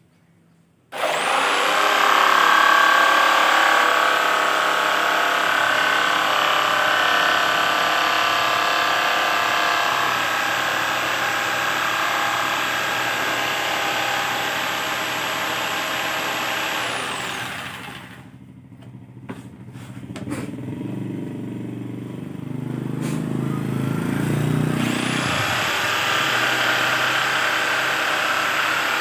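Electric jigsaw cutting acrylic sheet: the motor starts abruptly with a high whine, runs steadily while the blade cuts, then winds down. After a short pause with a few clicks and some low handling noise, it starts and cuts again.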